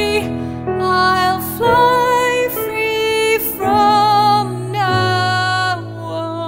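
A woman singing a slow musical-theatre ballad with grand piano accompaniment: about five long sung notes with vibrato over sustained piano chords. The voice stops near the end and the piano carries on alone.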